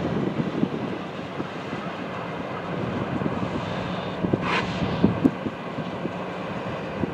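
GE C40-8 diesel freight locomotives running as they pull a freight train slowly through a rail yard: a steady engine rumble, with a few clanks about the middle and a brief hiss about four and a half seconds in.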